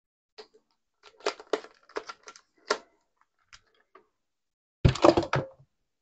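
Kitchen utensils and cookware being handled: a scatter of light clicks and knocks, then a louder clatter about five seconds in.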